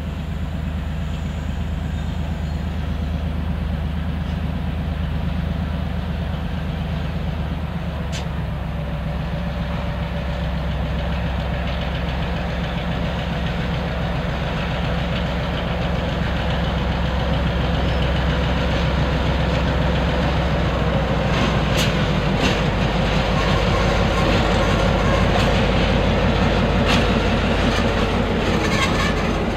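EMD SW1200 switcher's V12 EMD 567 diesel engine running at low throttle, growing louder as the locomotive draws near and passes with loaded centerbeam lumber flatcars. In the last third, wheels click over the rail joints.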